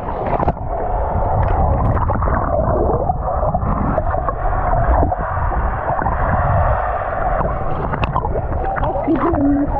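Muffled water gurgling and sloshing close to the microphone: a swimmer moving through the water of a wave-driven lazy river.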